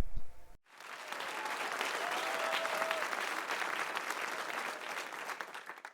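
Audience applauding: a dense patter of clapping that swells up in about a second, holds steady, and cuts off suddenly near the end.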